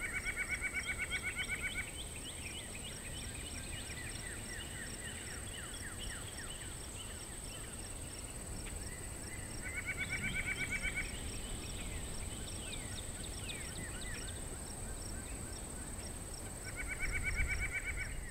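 Natural insect and bird chorus: a steady high-pitched insect drone and an evenly repeating faint chirp, with quick falling chirp notes scattered throughout. A rapid pulsing trill, the loudest sound, comes three times for about two seconds each: at the start, about ten seconds in, and near the end.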